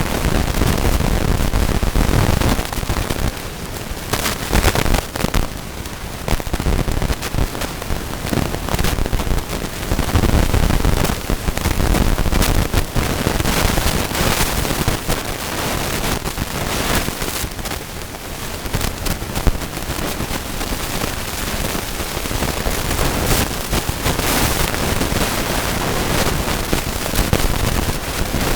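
A flock of chickens pecking at scattered feed: a dense, irregular crackle of many quick pecks, with a low rumble underneath.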